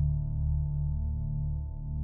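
Background ambient music: a held, droning chord with a gently pulsing low end.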